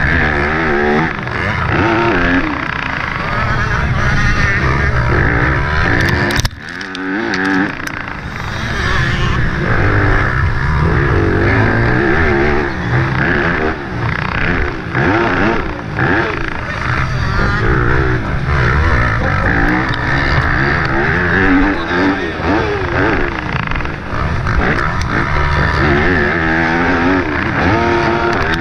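Yamaha YZ250F single-cylinder four-stroke motocross engine under hard riding, revving up and down again and again as the throttle is worked through the corners and jumps, with a brief sudden drop in engine sound about six and a half seconds in.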